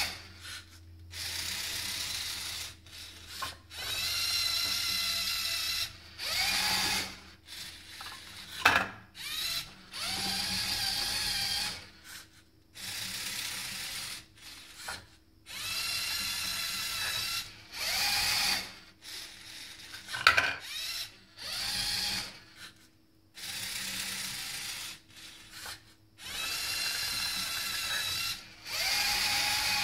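LEGO Mindstorms servo motors driving a Technic gantry crane through plastic gear trains, whirring in repeated bursts of one to two and a half seconds with short pauses between them while it moves Towers of Hanoi discs. A couple of sharp plastic clicks stand out as the loudest moments, once about nine seconds in and again about twenty seconds in.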